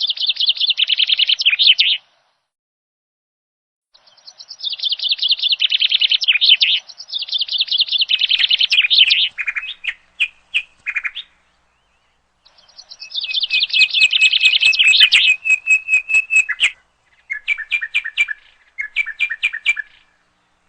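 A songbird singing in long phrases of fast, rattling trills and chirps, with short silent breaks between the phrases.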